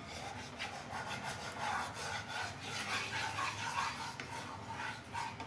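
Wooden spatula scraping and stirring a thick paste of wheat flour roasting in ghee around a nonstick kadhai, in repeated strokes. This is the slow roasting of the atta in ghee for halwa.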